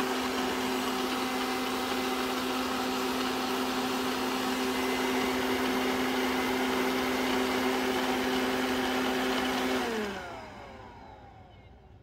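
Roborock S5 robot vacuum running, its suction fan giving a steady whine over a hiss, on a unit with an internal-error fault. About ten seconds in it shuts off and the whine falls in pitch as the fan spins down.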